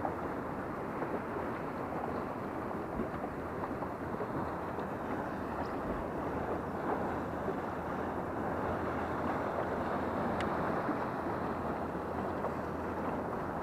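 Steady wind noise on the microphone mixed with choppy water lapping against a small skiff's hull.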